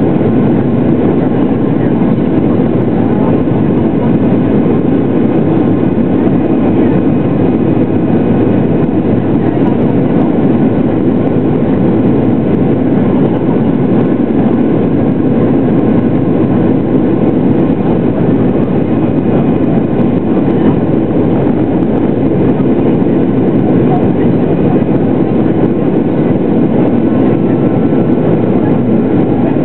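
Steady drone of a Boeing 737-800's CFM56-7B turbofan engines and rushing air, heard from inside the cabin during the climb after takeoff, with a faint steady whine over it.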